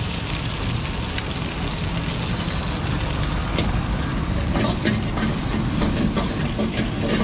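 Metal ladle clinking and scraping against a wok while noodles and vegetables are stir-fried, with a handful of sharp clinks in the second half, over a steady low rumble.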